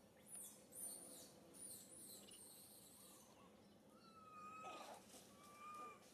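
Faint high-pitched animal calls: a run of quick, high sweeping chirps, then short whistled calls twice near the end.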